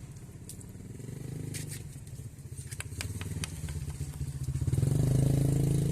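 Honda Vario scooter's single-cylinder engine running, growing louder about five seconds in, with a few sharp clicks and scrapes.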